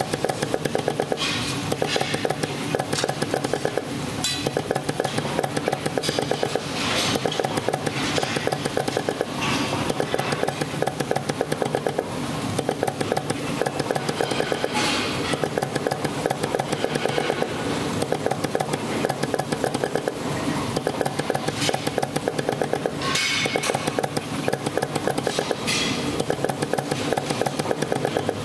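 Multi-head PVC dispensing machine running as it fills zipper-puller moulds: a steady mechanical hum with fast, continuous clicking, and a short hiss every few seconds.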